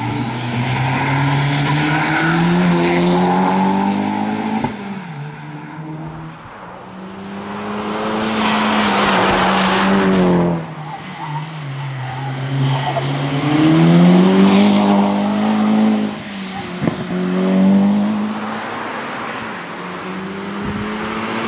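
Volkswagen Golf VI hatchback's engine revving hard on a slalom run, its pitch climbing and then dropping back about four times as the car accelerates and brakes through the chicanes and bends.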